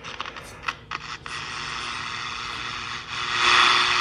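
Hallicrafters S-40A shortwave receiver's speaker crackling and clicking, then giving a steady static hiss that swells louder about three seconds in. The crackle comes from the set's dirty switch contacts as the controls are worked.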